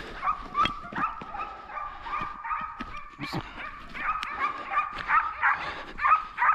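Hunting hounds yelping and whining excitedly: rapid, repeated high cries, several overlapping at once.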